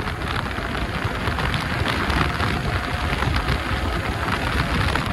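Wind buffeting the microphone of a motorcycle riding at about 75 to 83 km/h and speeding up: a steady rushing noise that grows a little louder over the first two seconds.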